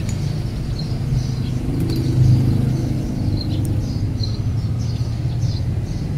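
Low rumble of a running vehicle engine, swelling about two seconds in, with small birds chirping lightly over it.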